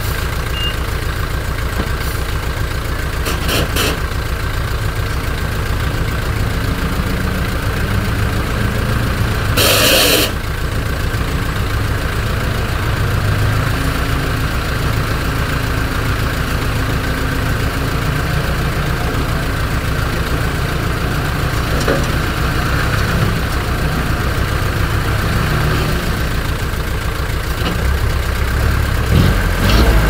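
Heavy diesel engines of earthmoving machines, a dump truck and a Komatsu D20P-6 bulldozer, running steadily, louder near the end. A reversing alarm gives its last beep at the start, and there is a short hiss about ten seconds in.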